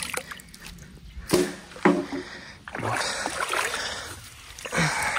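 Water splashing and sloshing as a wading person pulls apart a stake-and-branch fish fence in a river, with two short sharp knocks a little over a second in.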